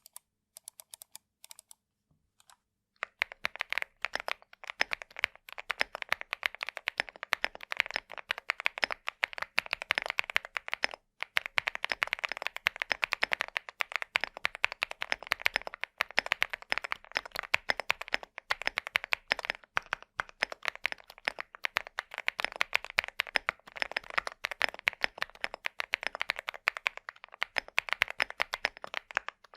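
Typing on a CIDOO V75 Plus 75% mechanical keyboard with an aluminium case and thick dye-sub PBT keycaps. A few separate keystrokes come first, then continuous fast typing starts about three seconds in, with a couple of brief pauses.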